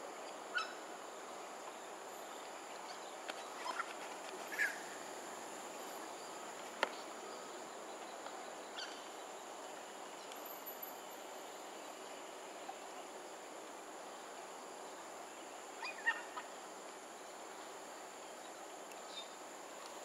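Smooth-coated otters calling: short, scattered squeaky chirps, a few of them close together, over a steady high background hiss. The sharpest calls come about half a second in, near seven seconds, and around sixteen seconds.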